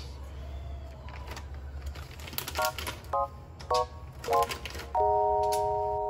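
Background music starting: four short pitched notes about half a second apart, then a held chord from about 5 s in. Faint light clicks of handling run underneath.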